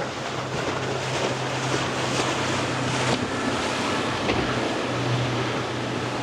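Cobia motorboat running through an inlet: a steady engine drone over the hiss of water and wind.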